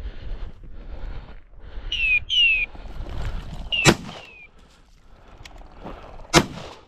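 Two shotgun shots about two and a half seconds apart, the first about four seconds in. Short, high, descending whistled chirps come before the first shot.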